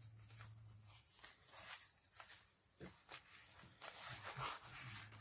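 Faint rustling of paper and fabric as hands handle a lace-and-ribbon fabric ruffle against a paper journal page, with a couple of soft taps about three seconds in and a little more rustling near the end.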